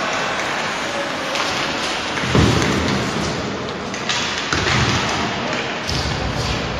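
Ice hockey game sound in an indoor rink: a steady hiss of skates on the ice with sharp clicks of sticks and puck. A heavy thud comes about two and a half seconds in, the loudest moment, and more low thudding follows later.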